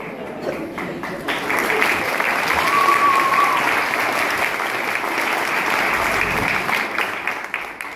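Audience clapping, building about a second in and dying away near the end, with a short high tone, like a whistle, about three seconds in.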